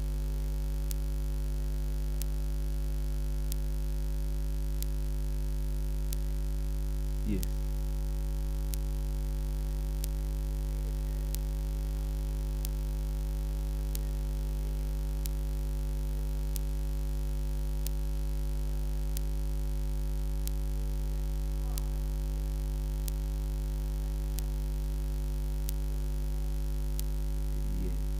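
Steady electrical mains hum, pitched near 50 Hz with higher overtones, picked up by the sound system. Faint regular ticks come a little over once a second.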